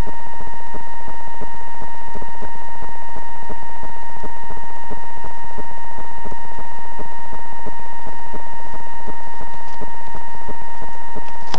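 A loud, steady, high-pitched tone held without change, with faint rapid crackling clicks beneath it.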